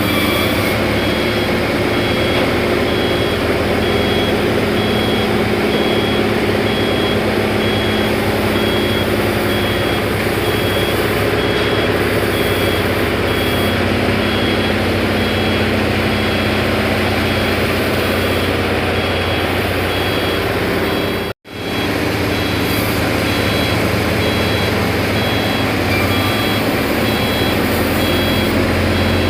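Forklift engine running steadily while its reversing alarm beeps in a regular high-pitched repeat. The sound drops out abruptly for an instant about two-thirds of the way through.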